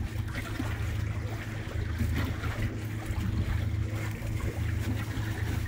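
A steady low engine hum, with wind and water noise around the boat.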